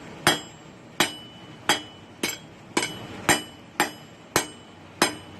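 Hand hammer striking hot steel on an anvil while forging a spear point: about nine blows, roughly two a second, each with a short, high metallic ring.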